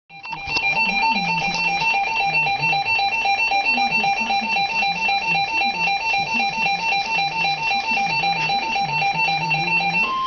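Emergency Alert System two-tone attention signal: two tones sounding together in rapid, evenly spaced beeping pulses, starting at once and running on without a break.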